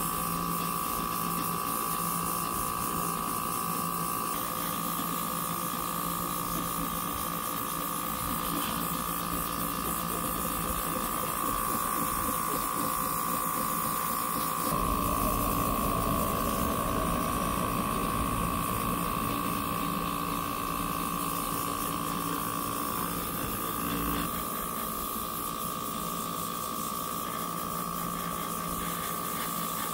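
Airbrush compressor running with a steady whine and hum, under the hiss of air and paint spraying from the airbrush as it dusts on a grainy sand-blow coat. The sound grows louder and fuller from about halfway through until about two-thirds of the way in, then settles back.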